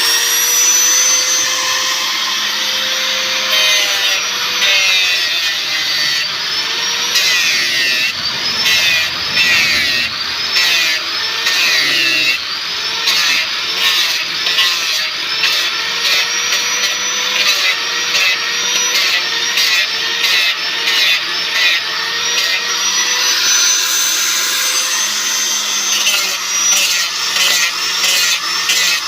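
Electric power tool working the wood of an esraj sound box: a steady motor whine that sags in pitch and recovers again and again as the tool bites, with rapid rasping chatter of the cutter on wood.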